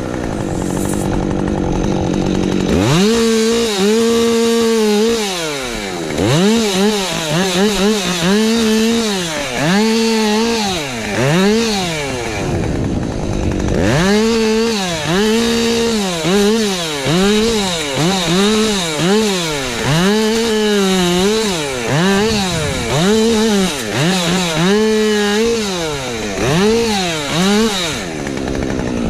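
Husqvarna 550XP Mark II two-stroke chainsaw running at low revs for the first few seconds, then revving up and dropping back again and again, about once a second. It settles briefly to low revs again about halfway through.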